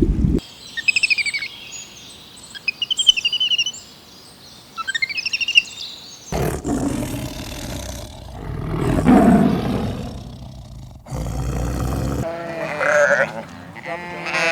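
A run of separate animal calls: high, rapid trilling bird calls in the first few seconds, then a low roar in the middle, then sheep bleating near the end.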